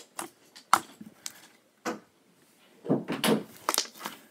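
Gold metallic slime being poked and squeezed by hand, giving a series of sharp clicks and pops, with a denser run of squishing about three seconds in.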